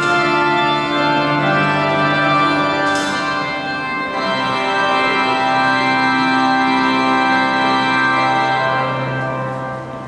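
Organ music: slow, sustained chords with held notes that change every few seconds, fading near the end.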